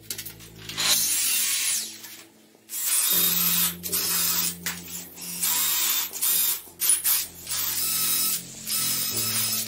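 Cordless drill running with a twist bit, boring into wood in two long runs, a steady motor whine over the noise of the bit cutting.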